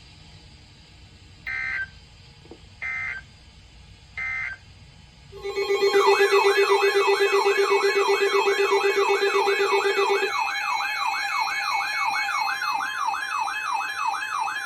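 Emergency Alert System audio: three short bursts of data tones about a second and a half apart, the end-of-message code of the previous alert. About five seconds in, a loud warbling siren-style alert tone starts, sweeping up and down about three times a second, with a steady low buzzing tone under it for its first four or five seconds.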